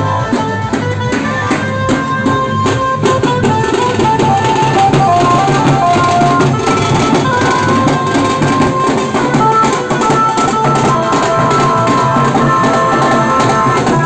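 Procession music: dhol drums beating fast and hard, under a melody of held notes that steps from pitch to pitch.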